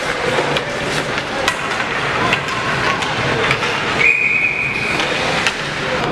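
Ice hockey play in a rink: sharp clacks of sticks and puck against a steady noisy din, then a single referee's whistle blast about four seconds in, lasting under a second.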